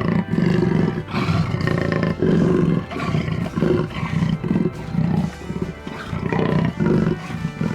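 Jaguarundi calling: a long run of short, rough, growly calls, about two a second, over light background music.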